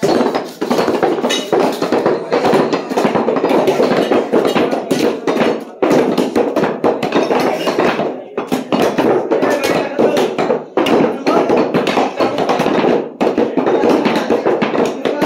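Many cleavers chopping meat on wooden stump blocks at once, a dense, irregular clatter of overlapping chops with no pause.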